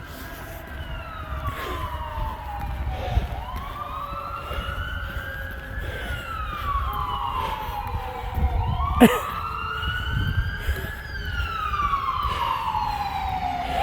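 Fire truck siren wailing, slowly rising and falling in pitch about once every five seconds, growing louder as the truck approaches. A low vehicle rumble runs underneath, and there is a brief sharp blip about nine seconds in.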